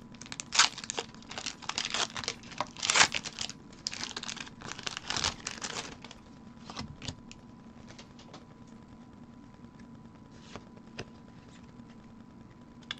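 Foil wrapper of a Pokémon card booster pack being torn open and crinkled: a dense run of crackles for about the first six seconds, then only a few faint rustles.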